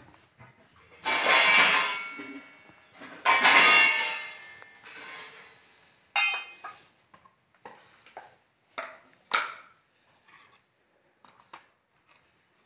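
A kitchen knife, a plastic cutting board and a plastic plate clattering as watermelon is sliced and the slices are set down. There are two loud, longer clattering scrapes in the first half, then a series of short knocks and taps.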